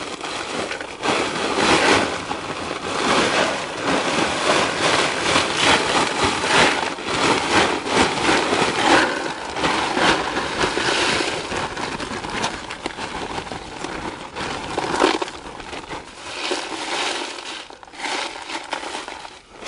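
Drainage rock pouring out of a bag into a trench over a perforated drain pipe: a steady crunching, rattling rush of stones that eases off briefly a few times.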